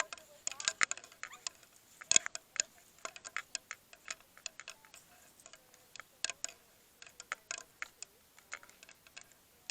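Irregular sharp clicks and ticks, several a second, with the loudest about two seconds in.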